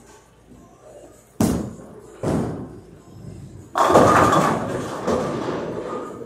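Hammer Black Widow bowling ball laid down onto the lane with a thud and a second knock about a second later, rolling, then crashing into the pins, the clatter dying away over about two seconds.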